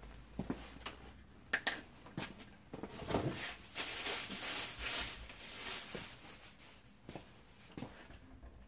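Packaging being handled while unpacking: a few light clicks and knocks, then about three seconds of loud rustling and crinkling, then a few fainter taps near the end.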